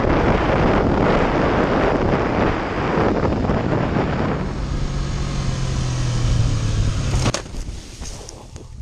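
Wind rushing over a rider's helmet camera while a motorcycle runs at road speed, its engine holding a steady low note. About seven seconds in, a sudden hit comes as the bike crashes off the road. The engine and wind drop away, and scattered crunches and rustles follow from tumbling through grass and dirt.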